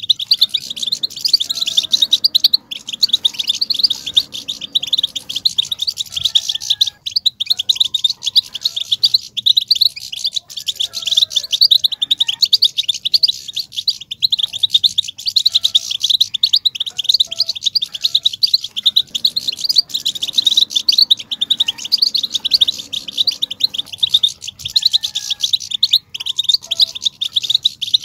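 European goldfinches twittering: a dense, unbroken stream of fast, high chirps and trills. This is the excited goldfinch chatter said to stir male goldfinches into singing.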